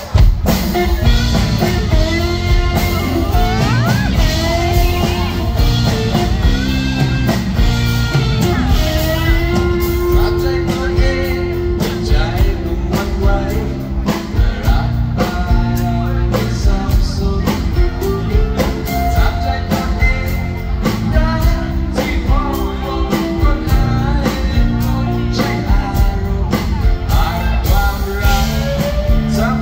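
Live band music with a man singing over acoustic guitar, bass and drums; the band comes in all at once right at the start.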